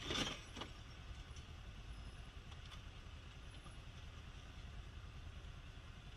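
A short noisy clatter at the very start, with a lighter knock just after, as a car collision dies away. Then a faint, steady low rumble of vehicle and road noise.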